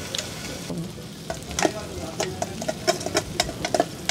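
Gopchang and vegetables sizzling on a round grill pan at the table, with a run of sharp metallic clinks from about a second in as metal tongs scrape and knock against a steel bowl and the pan while food is added.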